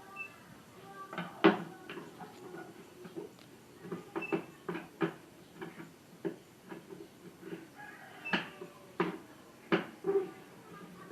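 Irregular clicks and knocks of hands and a screwdriver working on a TV's plastic casing as it is taken apart, with a few louder knocks.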